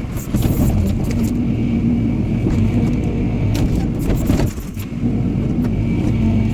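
Excavator with a log grapple, its diesel engine running steadily, with a string of short knocks and clatter as the grapple works. The engine drone dips briefly about two-thirds of the way through.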